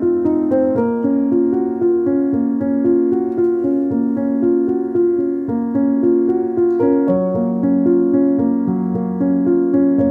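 Background piano music, with held notes changing about once a second.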